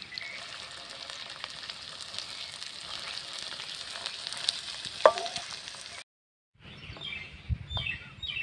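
Chopped onions sizzling in hot oil in an iron kadai while a coconut-shell ladle stirs them. About five seconds in the ladle gives one sharp knock against the pan. The sizzling cuts off abruptly about a second later.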